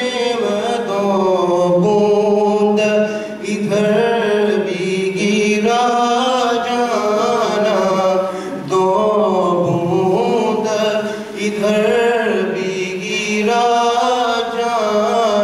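A man chanting solo and unaccompanied into a microphone: a devotional recitation in long melodic phrases, with short pauses between them.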